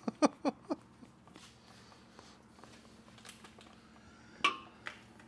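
Steel wrench clinking against the loader valve's hydraulic hose fittings as the lines are loosened: four quick ringing clinks right at the start, then a louder one and a lighter one about four and a half seconds in.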